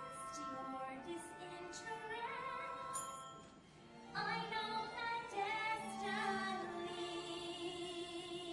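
A woman singing in musical-theatre style with accompaniment. The music drops briefly about halfway, then comes back in, and near the end she holds a long note with vibrato.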